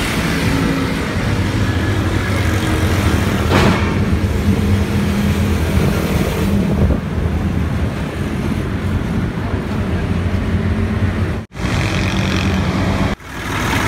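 A diesel vehicle engine running steadily close by, with an even low-pitched drone. The sound cuts out briefly twice near the end.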